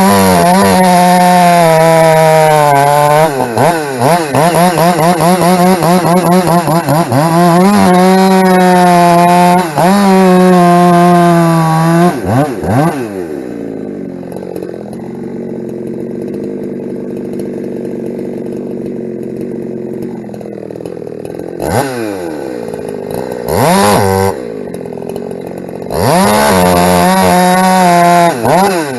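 Ported Husqvarna 372 two-stroke chainsaw run at full throttle through firewood, its revs dipping and recovering as it cuts, for about twelve seconds. It then drops to idle with a couple of short throttle blips, and goes back to full throttle near the end.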